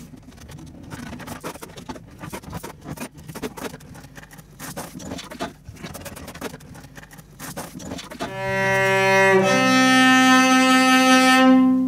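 Metal bar clamps clicking and knocking as they are unscrewed and lifted off a cello body after gluing. About eight seconds in, the freshly repaired cello is played with a bow: two long sustained notes, the second lower.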